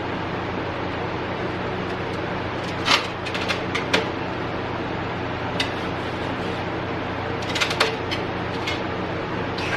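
A few sharp clicks and clatters of hard pinball machine parts being handled, a group about three to four seconds in and another near eight seconds, over a steady hum.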